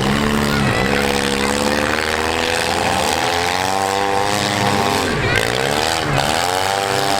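Engines of several compact demolition-derby cars revving hard and overlapping, their pitch rising and falling with the throttle. The pitch dips sharply and climbs back twice, about two-thirds of the way through.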